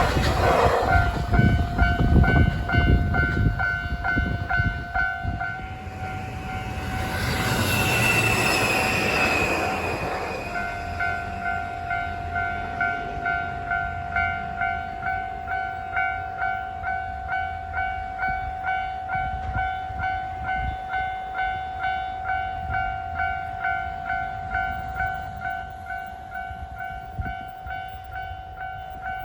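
A train passes the level crossing at speed, loud for the first few seconds, and another passing swell comes around eight seconds in with a slightly falling high tone. Throughout, the level crossing's electronic warning bell rings in a steady, even rhythm, and it is the only sound left for the second half.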